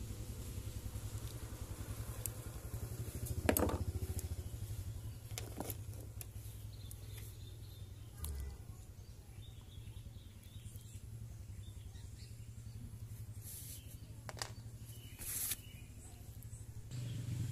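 Steady low hum in the background, with a handful of sharp clicks and taps from small parts being handled: worn angle-grinder carbon brushes and their holders. The loudest click comes about three and a half seconds in.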